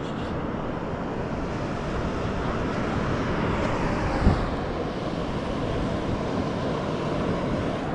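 Steady rushing noise of wind on the microphone, with one dull knock about four seconds in.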